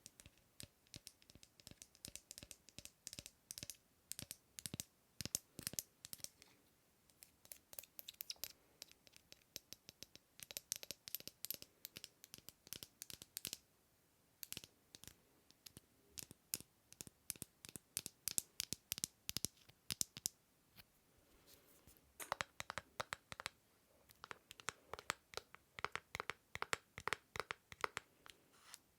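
Close, crisp scratching on an object by hand: many short strokes, several a second, in runs with brief pauses about halfway and about three-quarters through.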